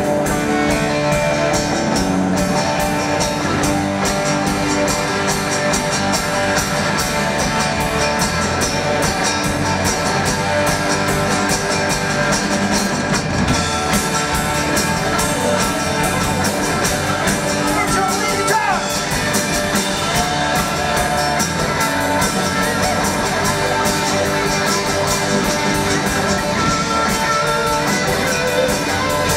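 A live band playing loudly and steadily on drum kit, guitars and bass.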